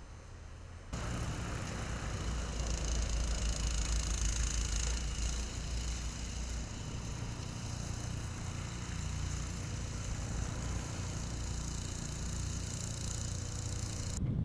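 Vehicle engine running steadily, a low rumble under a constant hiss. It starts abruptly about a second in and cuts off just before the end.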